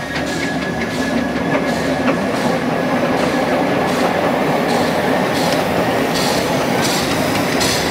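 Grand-scale steam locomotive running past with its passenger cars, with regular beats about every 0.7 s and wheels clicking over the track. A thin wheel squeal fades out about two seconds in.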